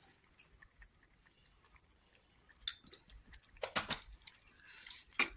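Light clicks and knocks of kitchen utensils as salt is added to a simmering curry. It is mostly quiet, with one click about halfway through, two close together a little later and one near the end.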